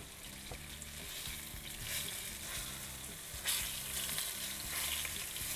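Cornmeal-coated walleye fillets sizzling in hot sunflower oil in a nonstick frying pan. The sizzle grows louder about three and a half seconds in as a fillet is lifted and turned with tongs.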